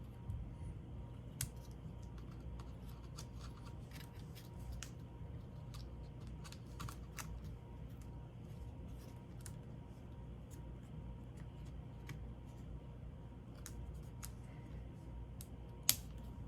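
Scattered faint clicks and ticks of small laptop parts being handled and fitted into place, over a low steady hum, with one sharper click near the end.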